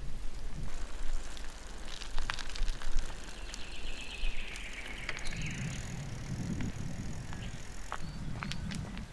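Bicycle being ridden over road and then a dirt track: tyre noise with scattered sharp clicks and rattles from the bike. A high tone falls slightly in pitch around the middle.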